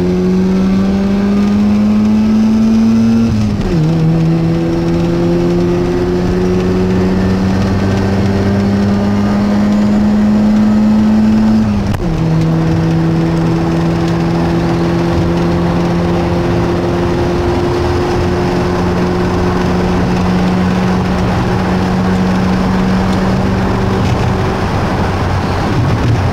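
Mazda RX-7's two-rotor rotary engine heard from inside the cabin, pulling through the gears. The engine note climbs, drops at an upshift about three seconds in, climbs slowly again, drops at a second upshift about twelve seconds in, then holds nearly steady at cruising speed.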